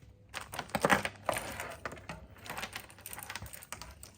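Bicycle chain being pulled off the sprockets and derailleur, its metal links clicking and rattling, loudest in a clatter about a second in.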